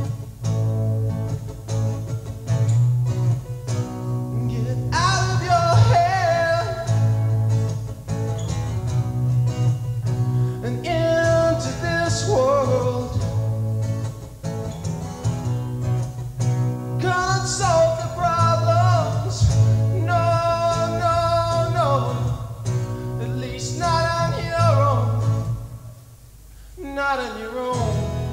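Live acoustic folk performance: singing over strummed acoustic guitar and plucked upright double bass. The music dips briefly near the end, then resumes.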